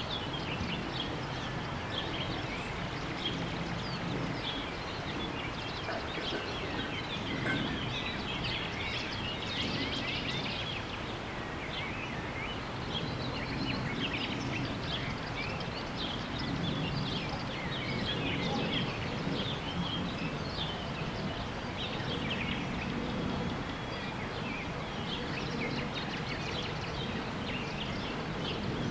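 Outdoor nature ambience with many birds chirping and twittering continuously over a steady low background noise, recorded in mid-side stereo on a Zoom H2n.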